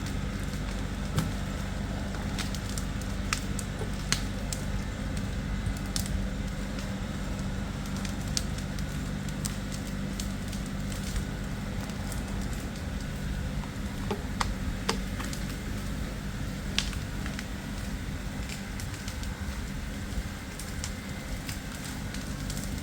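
LS farm tractor's diesel engine running steadily under load while it pulls a log up a hillside on a snatch-block rig, with scattered sharp cracks and snaps of wood and brush.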